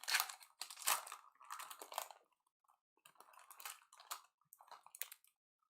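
Crinkling and tearing of a Mosaic football card pack's wrapper as it is opened, with the cards being handled. The quick, irregular crackles grow sparse after about two seconds.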